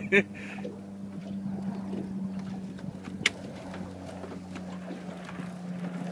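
A boat's motor running steadily with a low, even hum. There is a single sharp click about three seconds in.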